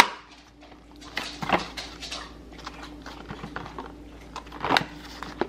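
A dog chewing a tomato: a few irregular crunching, smacking bites, clustered about a second in and again near the end.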